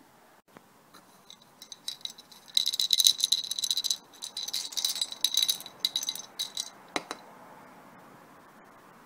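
Small bell on a cat's collar jingling in quick rattling runs for several seconds, loudest about three seconds in, followed by a single sharp click.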